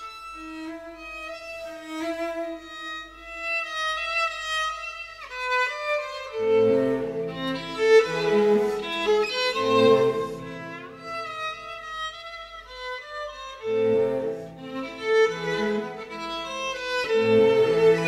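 Background instrumental music. A melody plays alone at first, and lower parts join about six seconds in, drop out briefly, then return.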